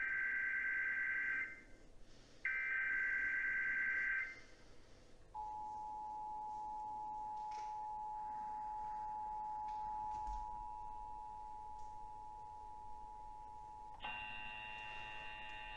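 Emergency Alert System test signalling: two bursts of the SAME header's warbling data tones, each about two seconds, then after a short pause the steady two-tone EAS attention signal. About fourteen seconds in, it turns harsher as a cluster of higher tones joins it.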